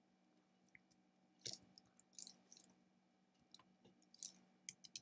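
Faint, scattered clicks of computer keyboard keys and a mouse, a few single presses with a quicker run of keystrokes near the end.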